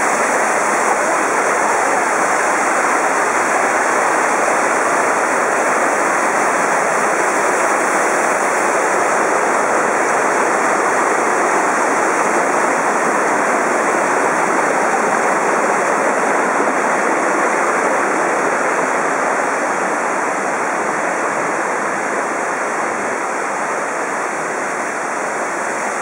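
Mountain stream cascading over rocks in a steady, loud rush of white water. It grows a little quieter for the last several seconds.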